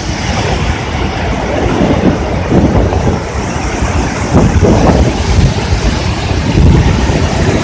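Heavy water rushing through the open spillway gates of a dam, a loud, steady rumbling roar.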